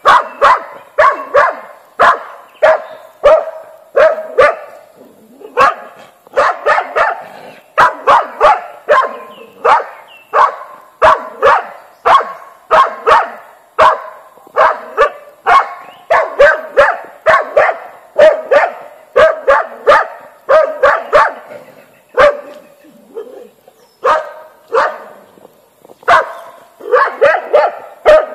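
Hunting dog barking at wild boar, baying them: sharp barks, about two a second, with a brief lull late on.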